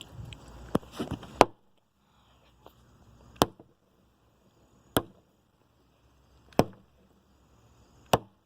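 A hatchet chopping into a fidget spinner in sharp single blows: three quick ones in the first second and a half, then four more, evenly spaced about a second and a half apart.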